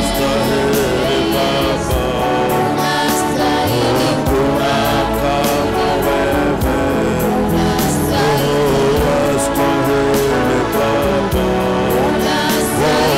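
Live gospel worship music: singing over instrumental accompaniment with a steady beat.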